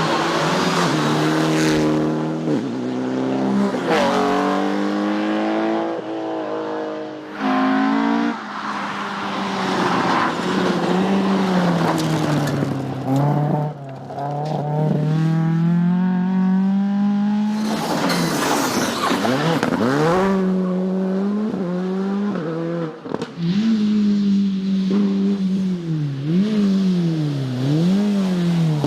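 Rally car engines on a special stage, revving hard and rising and falling in pitch through gear changes and corners. About two-thirds of the way through, a car passes close by with a quick drop in pitch.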